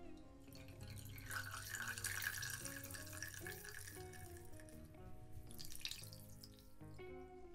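Liquid trickling and splashing into a glass as grated potato is wrung out in a cloth bag, from about a second in until about six seconds in, over background music.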